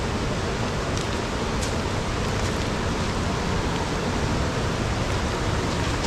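Steady rush of a fast-flowing, swollen river, an even unbroken noise with no change in level.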